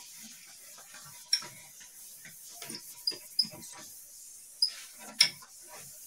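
A cloth being rubbed across a whiteboard to erase it: irregular wiping strokes, a few of them louder, with short high squeaks as the cloth drags on the board.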